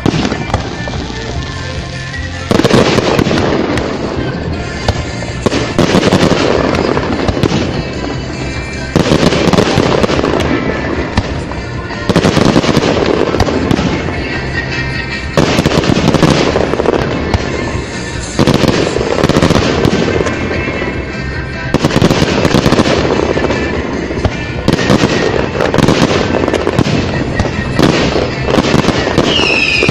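Aerial firework shells bursting and crackling, a fresh volley about every three seconds, over music played for the display.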